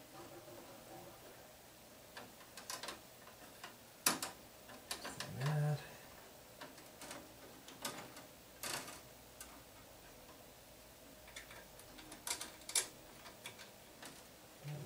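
Hands handling a wire inside a metal breaker panel: scattered light clicks and taps of wire and fingers against the panel and breakers, the sharpest about four seconds in, with a brief low hum about halfway through.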